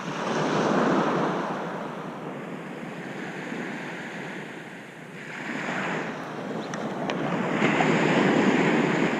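Waves breaking and washing up on a sandy beach in a heavy swell. The surf rises twice, once about a second in and again over the last few seconds.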